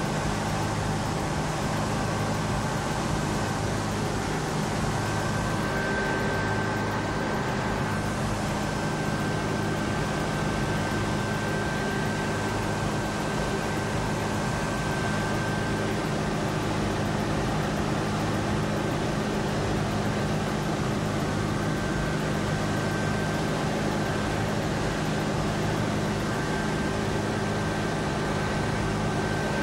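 A steady mechanical drone at an even level, with constant low hums and a thin high whine, and no change throughout.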